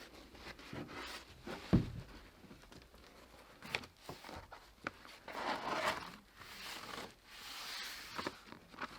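Tar paper rustling and crinkling as it is handled, with one heavy thump about two seconds in and a few sharp clicks.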